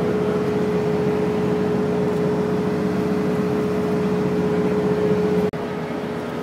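Steady mechanical drone with a constant hum over a low rumble. It breaks off abruptly about five and a half seconds in and gives way to a quieter steady drone.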